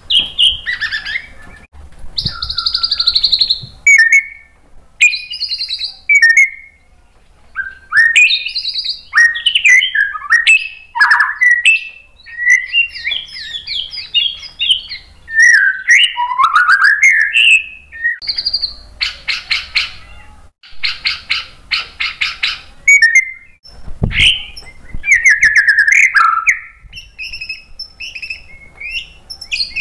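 White-rumped shama (murai batu) singing: a varied run of loud whistled phrases, sliding notes and quick chattering trills, with a buzzy rattling passage about two-thirds of the way through. A single dull thump comes about three-quarters of the way through.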